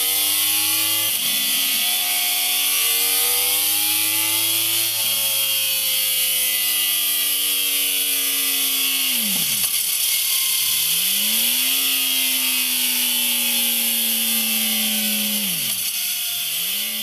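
Yamaha YZF-R1 crossplane inline-four engine and exhaust pulling hard through the gears. The engine note climbs steadily and drops back at each upshift, about a second in and again about five seconds in. Later the revs fall away sharply and climb again twice, over a steady high hiss.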